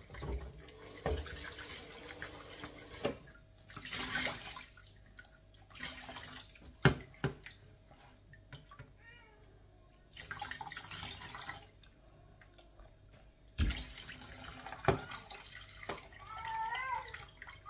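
Kitchen tap running into a sink in stop-start stretches, with a few sharp knocks of pots or dishes. A short high-pitched call sounds near the end.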